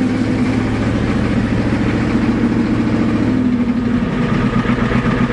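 Ford diesel truck engine running steadily just after a cold start, firing on its newly repaired glow plug system; the engine note shifts slightly about three seconds in.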